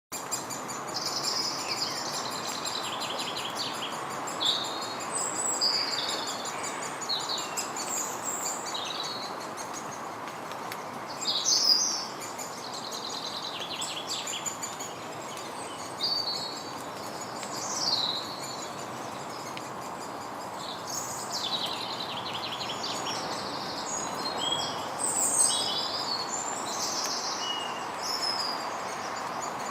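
Great spotted woodpecker chicks begging from the nest: high, buzzy chirping calls repeated over and over, with a steady hiss of background noise underneath.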